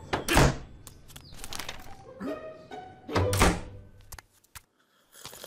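Cartoon sound effects: two loud thunks about three seconds apart, with smaller knocks and short music notes between them.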